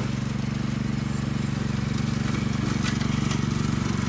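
Riding lawn mower running steadily under load as it cuts through tall grass, its engine giving an even hum, with a few faint clicks about three seconds in.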